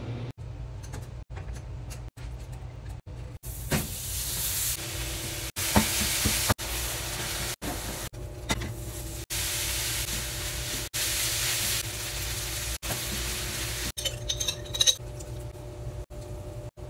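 Ground meat frying in a skillet on the stovetop, sizzling and hissing in short stretches, with pots steaming beside it. Near the end a spatula scrapes and clicks while stirring in a saucepan.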